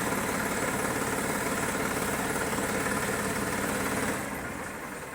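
Tractor engine running at a steady speed, driving a Redlands Jumbo 1209 round baler; the sound fades about four seconds in.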